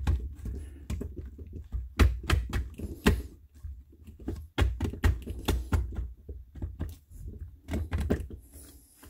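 Irregular plastic clicks and knocks as the plastic manifold of a Yamada NDP-15FPS air diaphragm pump is rocked and wiggled by hand off its mounting studs. The clicks come in uneven clusters over dull handling thumps.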